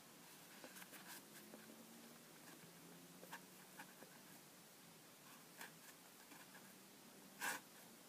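Near silence with faint handling sounds: light clicks and soft rustles as a canvas Converse Chuck Taylor All Star II low-top sneaker is turned over in its tissue-paper-lined cardboard box. One sharper click comes near the end.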